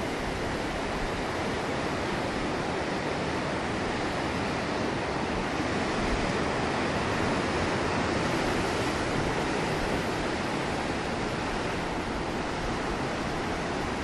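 Rough sea surf breaking and washing over a rocky shore below: a steady rushing wash that swells a little around the middle.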